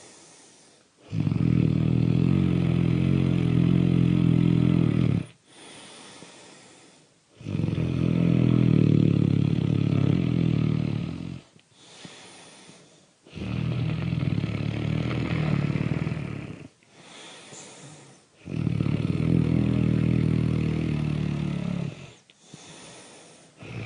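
Loud snoring in a slow, regular cycle: four long, rattly snores of about four seconds each, with quieter breaths out between them, and a fifth snore beginning at the very end.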